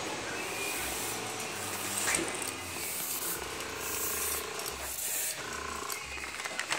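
Airbrush spraying paint in several short bursts of hiss.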